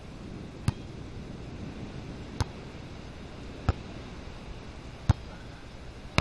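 Beach volleyball being struck by players' forearms and hands during a rally: five sharp thuds, roughly one every second and a half, over a steady background hiss.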